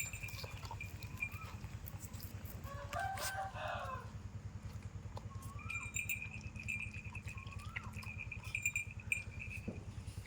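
A rooster crows once, about three seconds in. Short chirping calls and a steady high pulsing trill sound over a low pulsing hum.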